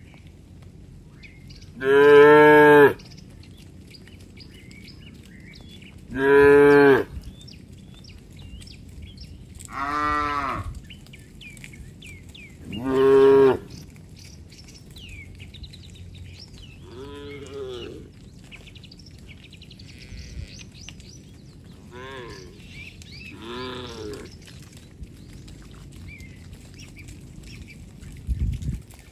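Cattle mooing: about seven separate moos, each about a second long, loudest in the first half and fainter later on. Small birds chirp faintly in the background.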